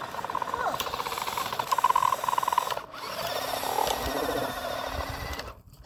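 Electric motor and gears of an RC truck whining under throttle in two bursts, with a short break about three seconds in. The sound stops shortly before the end.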